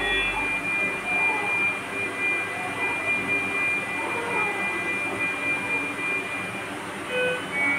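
Hospital monitoring equipment sounding a steady high-pitched tone over a constant machine hum, with a short cluster of alarm beeps at several pitches about seven seconds in.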